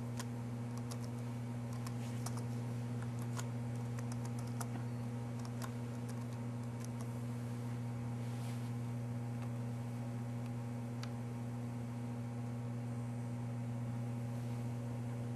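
Computer keyboard typing: irregular key clicks, thickest in the first five seconds with a few more later, over a steady low electrical hum.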